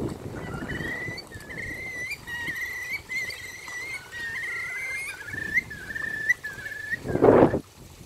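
Whimbrels calling: a long run of rippling, whistled trills, several notes hooking upward at their ends. A loud gust of wind hits the microphone near the end, over a low wind rumble.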